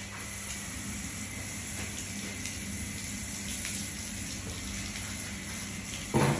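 Steady hiss of water spraying from a garden hose nozzle onto a horse's legs and splashing on a concrete floor. A short, loud thump comes near the end.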